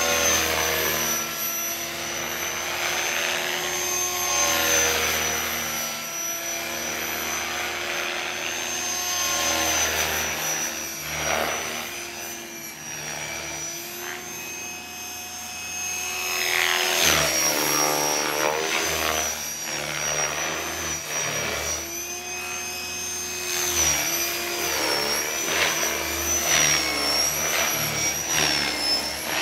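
Electric RC helicopter (Gaui Hurricane 550) in aerobatic flight: a steady high whine from the motor and drivetrain over the whooshing of its 500 mm carbon-fibre rotor blades. The pitch dips and rises as the blades load up in manoeuvres, with louder swells about 17 and 24 seconds in.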